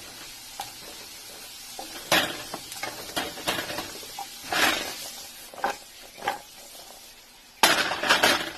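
Diced onions and carrots sizzling in hot oil in a frying pan, with a few louder bursts of sizzling and stirring against the pan, the loudest near the end.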